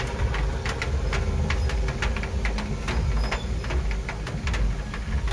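Vehicle engine running with a steady low rumble, heard from inside the vehicle, under many irregular ticks of heavy rain striking the glass and body.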